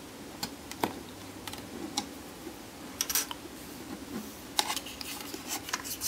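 Scattered light plastic clicks and taps from a TP-Link Tapo D230S1 battery video doorbell's housing being handled, as a pin is pressed into its pinhole to release the cover.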